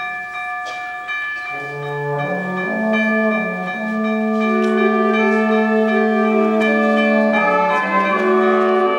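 A concert band playing. Sustained high tones ring at first. About a second and a half in, low instruments enter with notes stepping upward, and the full band grows louder.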